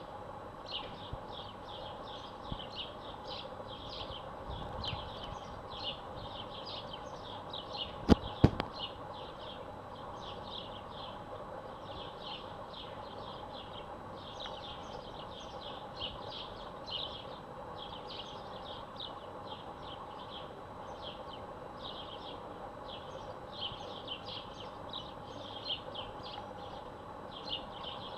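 Rapid, high-pitched chirping in short irregular runs, several chirps a second, over a faint steady hum. Two sharp clicks about eight seconds in, half a second apart, are the loudest sounds.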